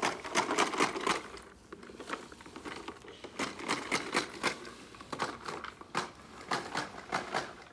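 Plastic toy push lawn mower clicking as it is pushed across grass: rapid, irregular clacking of its noise-maker in spurts, with a lull about a second and a half in.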